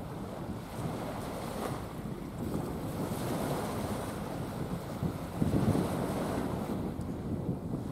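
Wind buffeting the microphone in a steady, gusty rumble, with a stronger gust about two-thirds of the way through.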